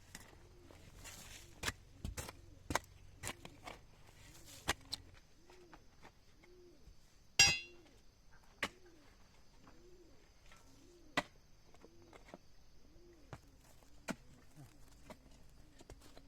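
A dove cooing over and over in a steady, low, repeating rhythm, with scattered sharp knocks, one louder knock about seven seconds in.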